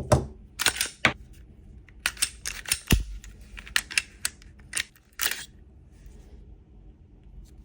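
Glock 48 pistol being handled: a run of sharp metallic clicks and snaps from its slide and parts, with one heavier knock about three seconds in. The clicks stop about halfway through.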